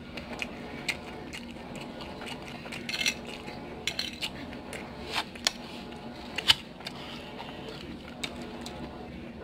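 Metal fork clinking and scraping against a plate while twirling and picking up noodles: a handful of scattered sharp clicks, the loudest about six and a half seconds in, over a faint steady hum.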